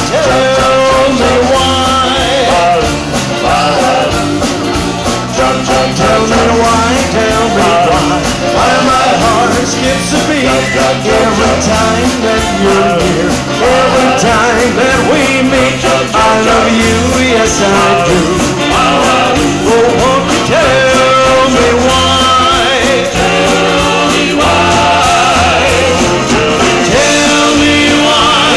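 Live rock-and-roll band playing an oldies song, with a man singing lead through a microphone over electric guitars, bass and drums.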